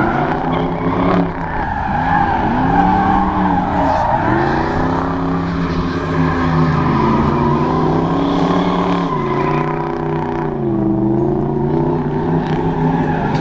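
Drift car engine revving up and down over and over as the car slides through the course, with its spinning rear tyres squealing.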